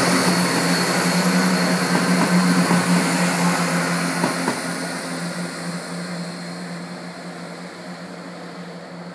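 CrossCountry Class 170 Turbostar diesel multiple unit moving away, its underfloor diesel engines giving a steady hum that fades as the train recedes. A few light clicks come about two to four seconds in.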